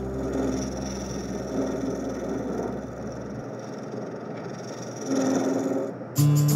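Wood lathe running with a turning tool cutting a spinning walnut box blank: a steady whir with scraping. A low hum drops out about halfway, and guitar music comes in suddenly near the end.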